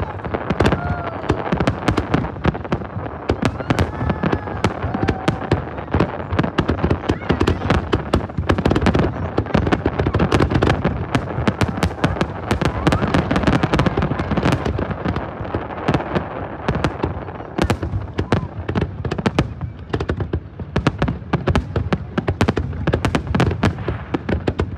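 Fireworks display: aerial shells bursting in a rapid, unbroken series of bangs and crackles.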